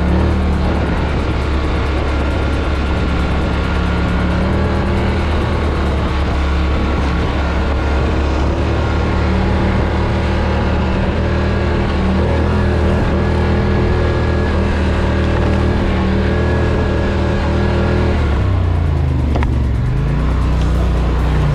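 Polaris Scrambler XP 1000 S ATV engine running at a steady, easy cruise. Near the end the revs drop and then climb again.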